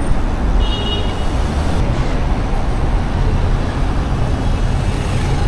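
Steady road-traffic noise from cars in the lanes alongside, heard from a moving bicycle, with a brief high-pitched squeal about half a second in.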